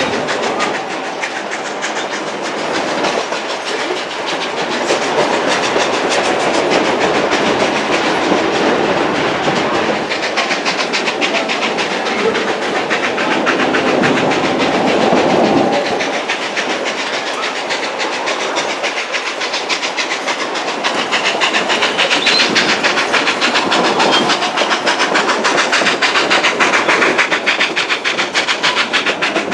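Narrow gauge passenger train running: steel wheels clattering steadily over the rails, heard from inside an open-sided car, a little louder near the end.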